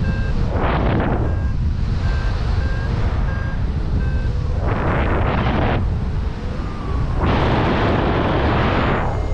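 Wind buffeting the microphone in flight: a heavy low rumble with loud gusty surges about a second in, around five seconds in, and from about seven seconds on. Short high beeps from a paragliding variometer sound at intervals underneath.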